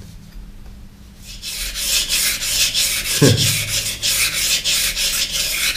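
Steel knife blade scraping back and forth on a wet coarse water stone in quick, even strokes that start about a second and a half in, raising a burr along the edge.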